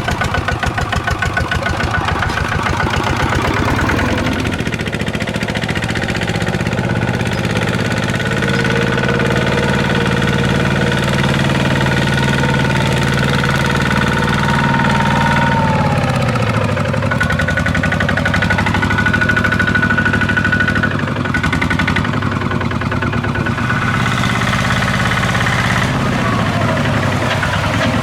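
Walking tractor's single-cylinder diesel engine running steadily with a knocking beat. Its pitch falls about halfway through and settles lower.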